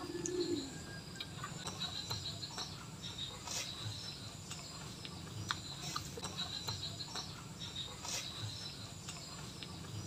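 Birds chirping in short, high, repeated twitters, with a brief low coo at the start. Over them come a few sharp clicks and soft smacks from hands tearing fried pigeon meat and from chewing.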